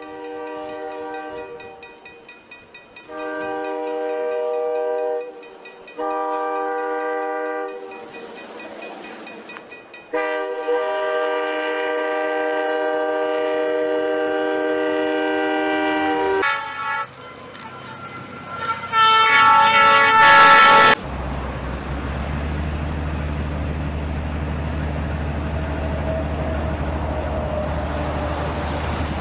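Train horn sounding in several long blasts, then a second horn in shorter blasts, as railway snowplows push through deep snow. About two-thirds of the way through, this gives way to a steady low rumble of the locomotive with the rush of snow being thrown.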